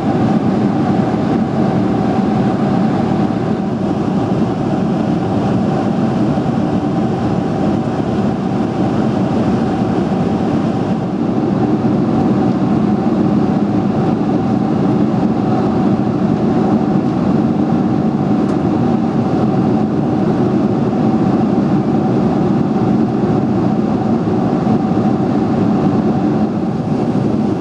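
Steady in-cabin drone of a Boeing 747-400 in flight, heard from a seat over the wing: its General Electric CF6-80C2 turbofans and the airflow along the fuselage, with a constant mid-pitched hum held above the roar.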